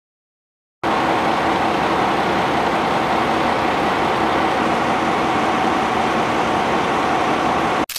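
Shuhoku Bus highway coach standing with its diesel engine idling: a loud, even running noise with a constant hum, starting about a second in and cutting off abruptly near the end.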